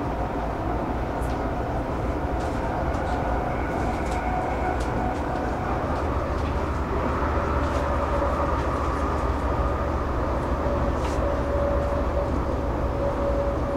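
Electric commuter train running, heard from inside the carriage: a steady rumble and rail noise with a motor whine that shifts in pitch about halfway through, and a few faint clicks.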